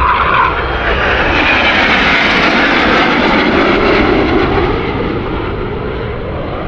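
Jet aircraft flying past overhead, a Boeing 727 airliner and a formation of three Northrop F-5 fighters: a loud, continuous rush of jet noise that slides lower in pitch midway and fades over the last couple of seconds.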